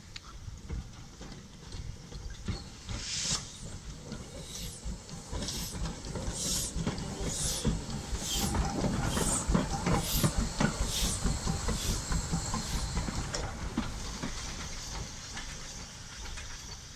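1916 Hudswell Clarke saddle-tank steam locomotive chuffing slowly past, with hissing steam. The puffs come about one a second and are loudest about two-thirds through, then fade into a steady hiss of steam as the engine moves away.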